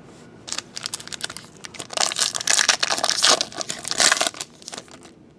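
Foil wrapper of a Bowman Sterling baseball card pack being torn open and crumpled by hand. The crinkling comes in quick crackles, loudest in the middle, and dies away shortly before the end.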